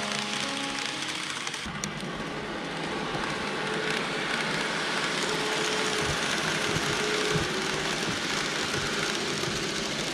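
KATO N-gauge 117 series model train running along the track: a steady rush of metal wheels on rail, with irregular low clicks as the wheels cross rail joints and a faint motor whine. Background music fades out at the very start.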